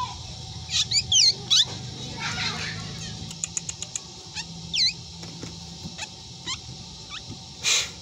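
Caged black drongo calling: a few sharp, steeply sweeping whistled notes, a quick run of about six clicks halfway through, more sweeping notes and scattered chirps, and a short harsh rasp near the end.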